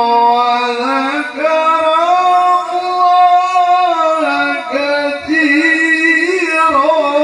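A male qari reciting the Quran in melodic tilawah style through a microphone, drawing out long ornamented notes with wavering melismas, in three long phrases.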